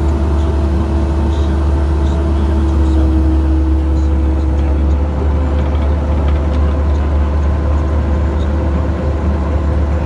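Bobcat mini excavator's diesel engine running steadily, heard close up from the operator's seat: a strong, constant low hum with a higher whine that fades out about halfway through.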